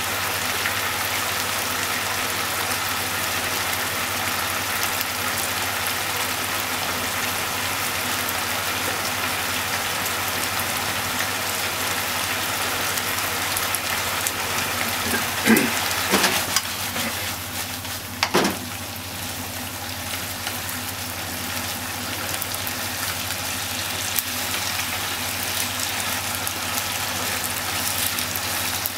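Pork, okra and onions sizzling steadily in sauce in a frying pan, with a few sharp knocks about halfway through.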